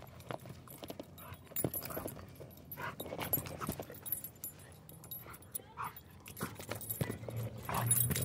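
A German Shorthaired Pointer shakes and tugs a rope toy: paws scuffle on dirt and there are quick irregular clicks and thuds, with panting.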